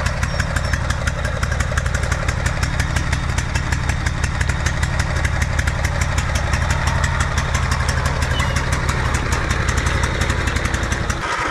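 Lawnmower's small engine running steadily, its firing pulses even throughout; the low rumble briefly drops out near the end.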